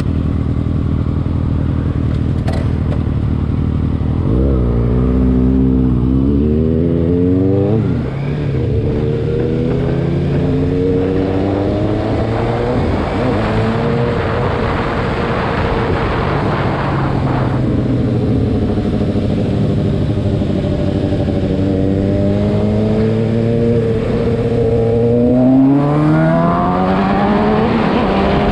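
Yamaha R3's 321 cc parallel-twin engine from the rider's seat: it idles, then pulls away about four seconds in, revs climbing and falling back at gear changes about eight and seventeen seconds in, then climbing again near the end.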